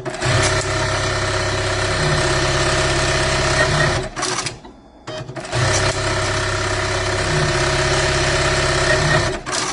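Juki LBH-1790S electronic buttonhole sewing machine sewing two buttonhole cycles back to back. Each run is about four seconds of steady high-speed stitching, with the hum changing pitch partway through, and ends in a brief loud burst.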